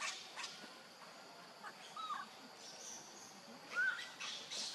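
Baby macaque crying: a short high cry at the start, then two brief squeaks that rise and fall in pitch, about two and about four seconds in, the second louder.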